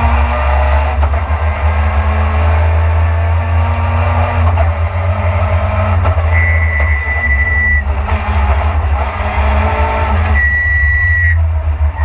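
Lada VFTS rally car's four-cylinder engine running hard, heard from inside the cabin, with a high, thin whistling tone twice, about six and ten seconds in, each lasting around a second.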